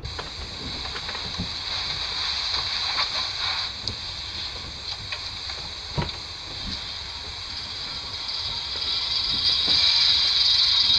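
Horn phonograph running: a steady hiss of record surface noise with scattered clicks and crackles, getting louder near the end.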